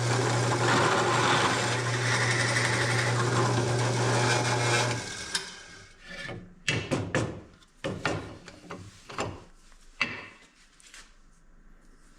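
Electric drill running steadily, boring out the bolt hole in a wooden knob blank, for about five seconds. It is followed by a run of irregular scrapes and knocks that die away near the end.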